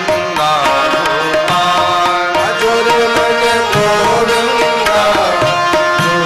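Indian devotional bhajan music in an instrumental passage between sung lines: a sustained, gliding melody over steady hand-drum percussion.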